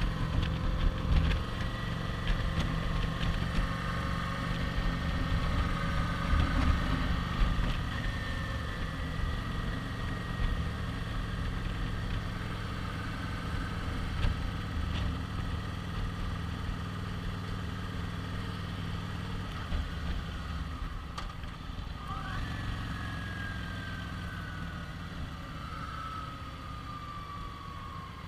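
Kawasaki Vulcan 900 V-twin engine running at road speed, with wind noise on the bike-mounted microphone. Near the end the engine note falls steadily and gets quieter as the bike slows.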